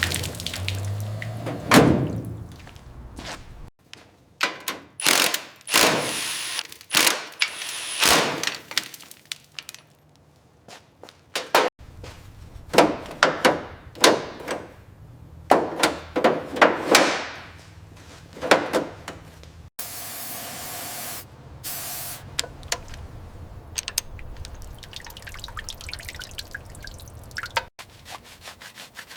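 A run of separate knocks, thunks and scraping swishes from hands-on work on an old car, in several short edited segments, with a brief burst of hiss about twenty seconds in.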